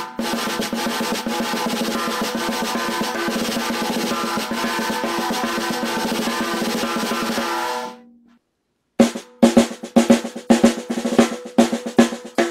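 Unmuffled PVC-shell snare drum with a coated Evans ST head and Pure Sound Custom Pro snare wires, played as a steady, even roll for about eight seconds, recorded on a cell phone. It stops with a short ring; after a brief gap come single stick strokes in a loose pattern.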